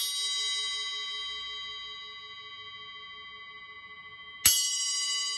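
A 6-inch Arborea Knight Bell, a small effect bell cymbal, struck with a wooden drumstick and ringing on in a long slowly fading tone with several high overtones, a low one wavering underneath. It is struck again about four and a half seconds in.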